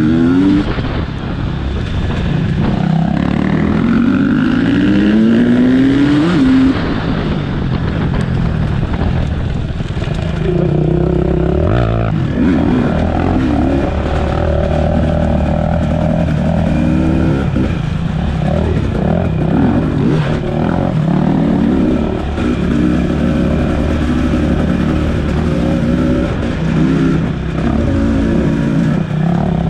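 Enduro motorcycle engine revving again and again, its pitch climbing in sweeps as the throttle is opened and dropping back between them, with some stretches held at a steady pitch.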